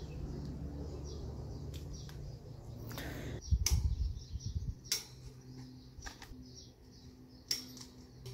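Sharp metallic clinks and knocks of a chrome wire shelving unit's steel posts and wire shelf being handled during assembly, several of them a second or so apart, the loudest a little past the middle and near the end, over a low steady hum. Birds chirp faintly in the background.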